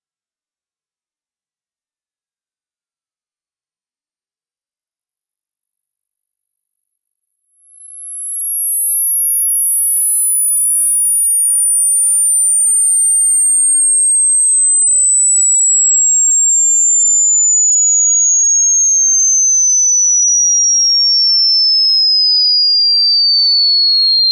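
A single pure sine test tone held at a steady loudness while sliding slowly and evenly down in pitch, from a very high pitch near the upper limit of hearing to a high whistle-like pitch. This is a hearing-test frequency sweep, in which the listener notes the point where the tone becomes audible.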